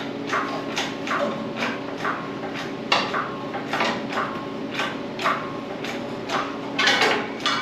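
A hoist being worked in steady strokes, about two a second, each stroke a short metallic scrape that falls in pitch, as a load is raised.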